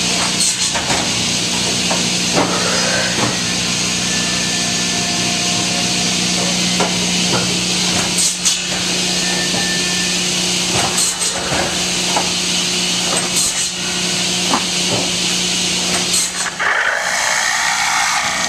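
A cutoff saw cutting peeled logs to length. The shop machinery gives a steady hum and hiss, and there are sharp wooden knocks and clatters every few seconds as the logs are handled and cut. About a second and a half before the end the hum drops away and a different machine's noise takes over.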